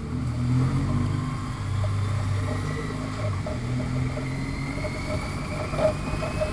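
Motorcycle engine running under way, its note shifting a few times, with a faint whine that climbs slowly in pitch in the second half.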